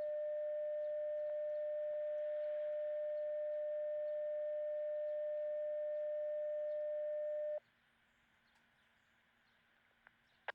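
Siren activation tone received over a Uniden Bearcat handheld scanner: one steady, even-pitched tone held for about seven and a half seconds that cuts off abruptly, leaving radio hiss. It is the paging tone that sets off the outdoor warning siren.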